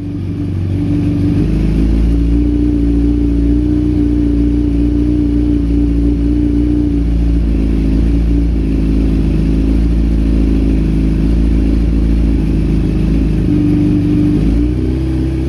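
A 1994 Honda CBR900RR's warmed-up inline-four engine idling steadily.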